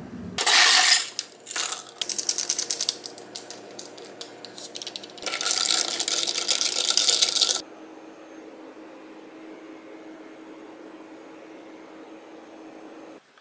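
Ice cubes clinking against a glass mug as an iced drink is made and stirred with a long spoon: a loud clatter about half a second in, runs of rapid sharp clinks, then about two and a half seconds of dense rattling while stirring that stops suddenly.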